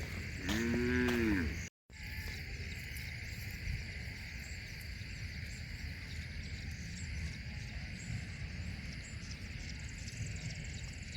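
A cow moos once, a call of about a second that rises and falls in pitch. After a short break in the sound it gives way to a steady chorus of insects over a low, even hiss.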